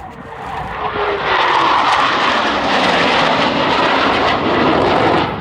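Aircraft engine noise from a fixed-wing airplane passing close, swelling over the first second and then holding loud and steady.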